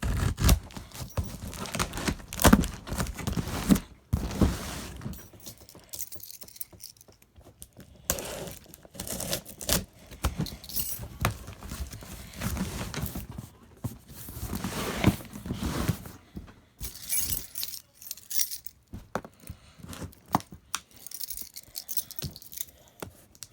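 A key scraping and slicing through packing tape on a cardboard box, with cardboard rustling, scraping and tearing in irregular bursts and key clicks, busiest in the first few seconds.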